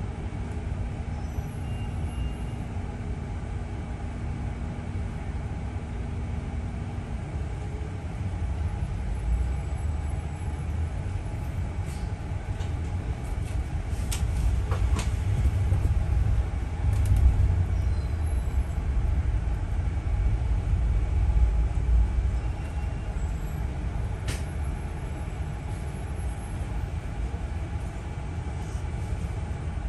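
Double-decker bus running, heard from inside on the upper deck: a steady low engine and road rumble that grows louder through the middle and eases toward the end, with a few sharp clicks and rattles. A steady hum stops about a quarter of the way in.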